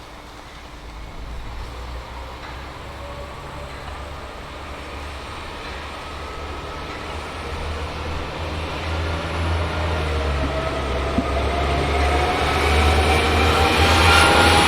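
A train drawing closer and gathering speed: a low rumble with a whine that rises steadily in pitch, growing louder throughout.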